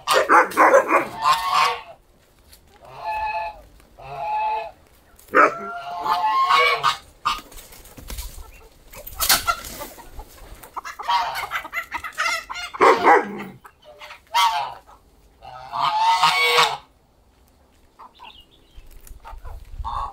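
Domestic geese honking over and over, a series of loud separate calls with short pauses between.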